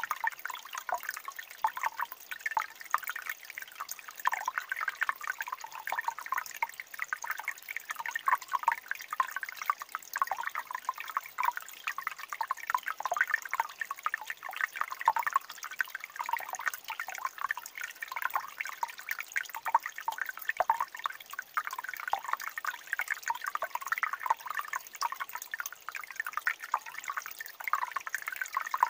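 Shallow mountain stream trickling over rocks: a steady, busy babble of small splashes and drips.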